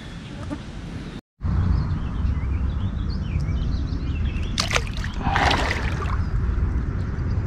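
Water sloshing and splashing in the shallows as a fish held by the jaw is let go and kicks away, loudest about five and a half seconds in, over a steady low rumble with faint high chirps.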